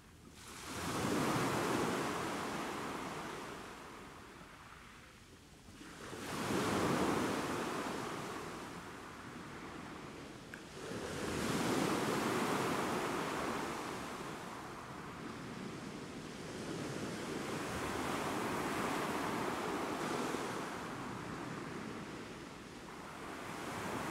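Sea waves washing in on the rocky shore, the surf rising and falling in slow surges about every five or six seconds.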